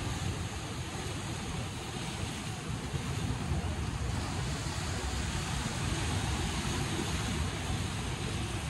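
Sea surf washing against a rocky shore, a steady rushing noise, with wind rumbling on the microphone.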